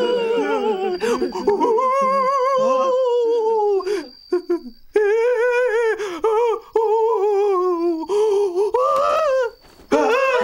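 Eerie high wordless voice wailing in long wavering notes, a ghost's moan, with short breaks about four and nine and a half seconds in.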